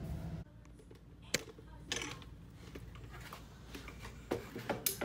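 A low hum that cuts off half a second in, then scattered light clicks and taps, a single sharp one at first and a quick cluster near the end.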